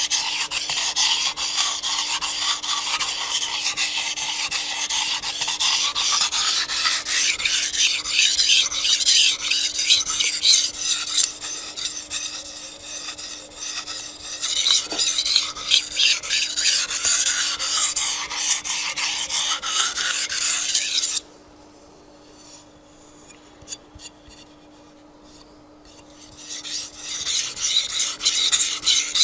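Japanese chef's knife drawn in repeated strokes across a wet 800-grit whetstone, steel scraping on stone while the edge is being set. The strokes stop for about five seconds past two-thirds of the way through, then start again near the end.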